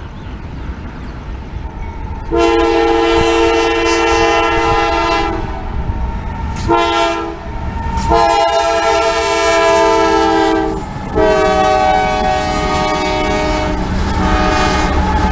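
CSX freight locomotive's air horn sounding a chord for a grade crossing: a long blast about two seconds in, a short one, then two more long ones, the last held as the locomotive reaches the crossing. A low rumble of the approaching train lies underneath.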